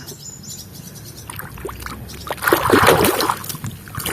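Water splashing and sloshing as a muddy toy is washed by hand in water, with a few small drips and knocks at first and louder splashing from about two and a half seconds in.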